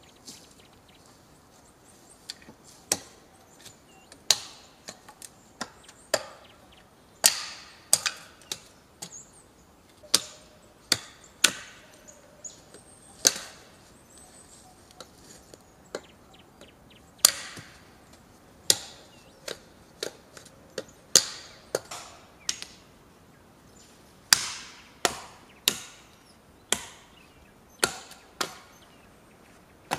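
Axe blows chopping wood: a long series of sharp strikes, roughly one a second and unevenly spaced, starting about two seconds in.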